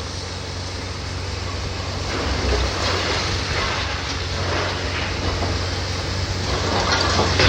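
Heavy demolition machinery running steadily, with the crunching and clattering of building debris being broken and moved growing louder from about two seconds in.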